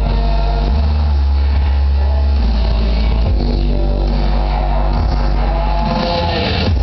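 Loud recorded music with a heavy bass line, played over a hall's loudspeakers as the backing for a dance routine.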